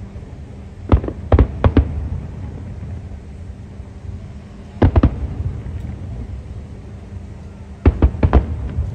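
Aerial fireworks shells bursting: three quick booms about a second in, a pair around the middle, and another three near the end, over a low steady background noise.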